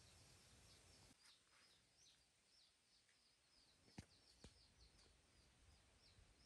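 Near silence, with faint high bird chirps repeating a few times a second in the background and two soft clicks about four seconds in.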